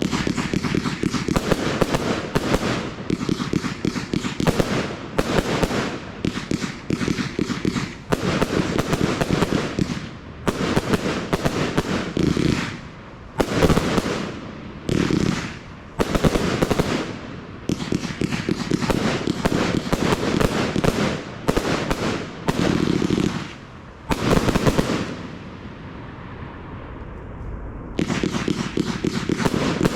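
Audacious compound firework cake firing: rapid volleys of bangs and crackle in clusters a second or two long, separated by short gaps, with a lull a couple of seconds before the end before firing resumes.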